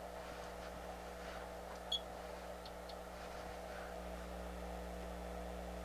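Steady low electrical hum from the powered bench equipment, with a faint click about two seconds in as the oscilloscope test probes are handled.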